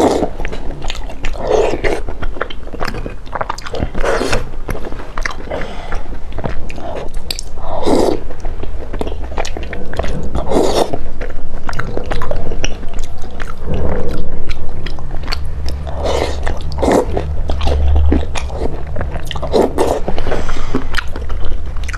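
Close-miked wet chewing, biting and lip-smacking of someone eating soft, gelatinous cheese-baked pork skin in sauce, with a short noisy mouth burst every second or two.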